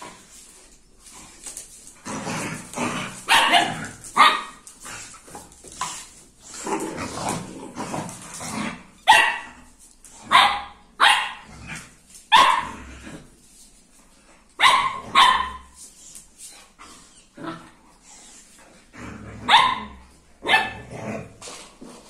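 A dog barking: about a dozen short, sharp barks spread across the stretch, several coming two close together.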